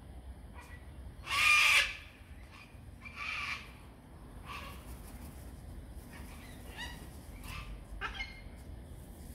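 Sulphur-crested cockatoo giving one loud, harsh call about a second in, then a shorter, quieter one around three seconds in, followed by a few brief, faint calls.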